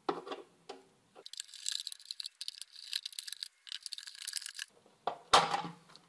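Screwdriver turning out the screws of a plastic rotary-dial telephone case: a few clicks, then several seconds of dense scratchy ticking. A loud plastic clunk comes about five seconds in as the cover is pulled off.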